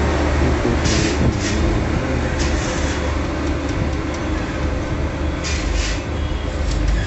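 Indian freight train's wagons rolling past close by: a steady low rumble of steel wheels on rail, with a few short bursts of higher hiss.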